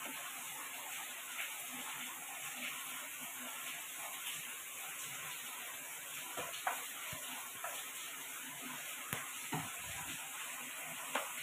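Chapati dough being pressed and rolled with a wooden rolling pin on a metal rolling board: soft scraping with a few light knocks over a steady hiss.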